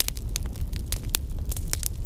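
Crackling-fire sound effect: dense, irregular crackles and pops over a steady low rumble.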